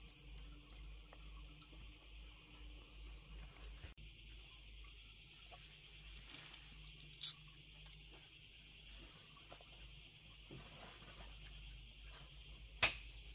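Steady, high-pitched chorus of insects, with a faint low rumble beneath it. There is a faint click about halfway through and a sharp, louder click near the end.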